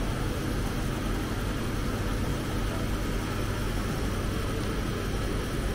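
Steady low background hum of a restaurant dining room, even throughout with no distinct events.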